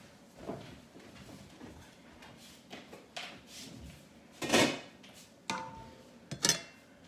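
A metal ladle clinking and scraping in a metal cooker pot, amid scattered kitchen knocks; the loudest clunk comes about four and a half seconds in, with a brief metallic ring and another knock near the end.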